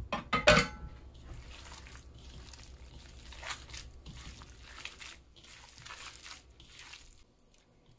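Wet squelching of hands kneading a raw ground beef meatloaf mix with chopped onion, egg and cheddar in a plastic bowl, an uneven series of squishes about a second apart. A short louder sound comes about half a second in.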